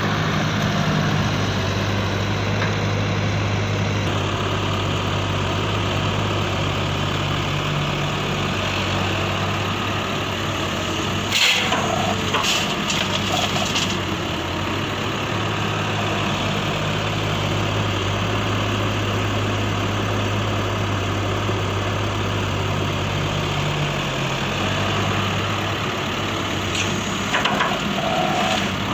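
Radio-controlled toy excavator running with a steady mechanical hum whose pitch shifts now and then, broken by short clattering bursts about a third of the way in and again near the end.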